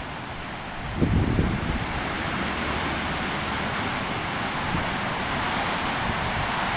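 Strong storm wind rushing across a CCTV camera's microphone as a steady noisy roar, with a heavy gust buffeting the microphone about a second in.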